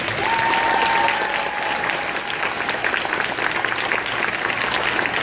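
A crowd of children clapping, steady applause throughout. A single long high note, sliding slightly down, sounds over it in the first two seconds.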